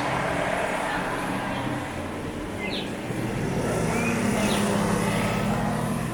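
A motor vehicle's engine running, its low hum growing louder in the second half, over steady traffic noise. A few short bird chirps sound in the middle.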